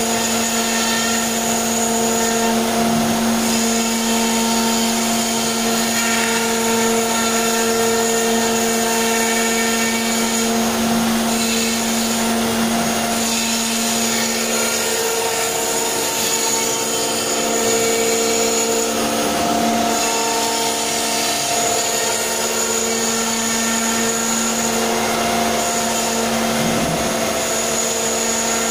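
CNC router spindle running with its bit cutting grooves into a wooden door panel: a steady hum with a high constant whine and the rasp of the cut.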